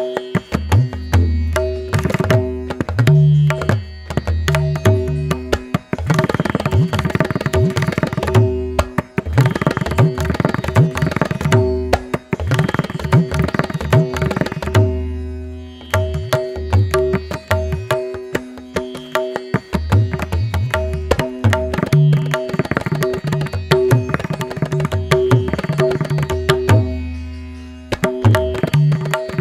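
Background instrumental music: a fast hand-drum pattern over a steady held drone, in an Indian classical style.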